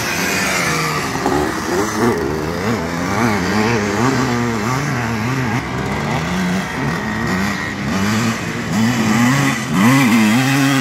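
Vintage motocross motorcycle engines revving hard on a dirt track, their pitch rising and falling again and again as riders open and close the throttle through the turns. One bike grows loudest near the end as it rounds the turn close by.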